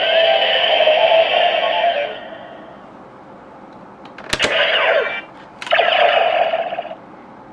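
DX Neo Decadriver toy belt playing its electronic sound effects through its small built-in speaker: a musical tone ends about two seconds in, then two sharp mechanical clicks, each followed by about a second of electronic effect sound, the first with a falling sweep.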